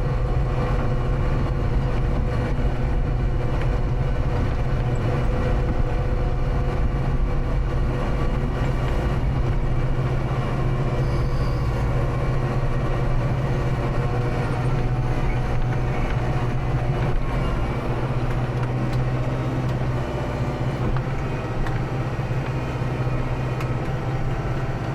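Kubota tractor's diesel engine running steadily with a constant low hum.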